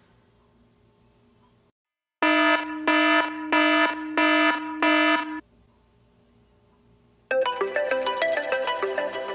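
iPhone alarm tones: five loud, evenly spaced beeps, then, after a short gap, a quick run of bright melodic notes.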